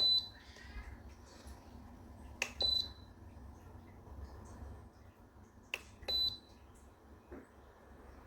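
Electronic beeper on a Pelonis pedestal fan's control panel giving three short high beeps a few seconds apart. Each beep follows a click of a button being pressed, the fan acknowledging a change of setting.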